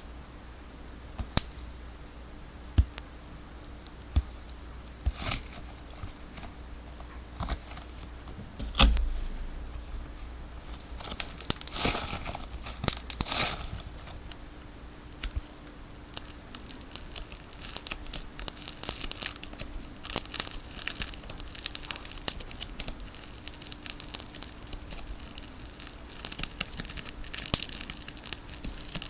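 Packing tape on a tape ball being cut and peeled apart. A few sharp clicks come in the first nine seconds. Then come tearing and crinkling, loudest about 11 to 14 seconds in, and a steady crackly rustle through the rest.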